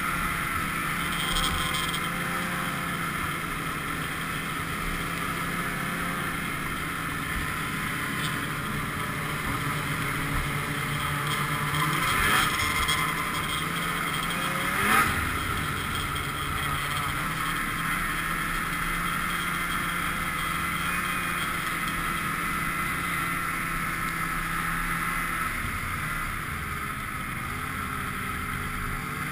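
Polaris snowmobile engine running steadily at trail speed, heard from on the sled. Around halfway through the engine pitch rises and falls, with a short sharp knock just after, and near the end the engine note drops as the sled slows.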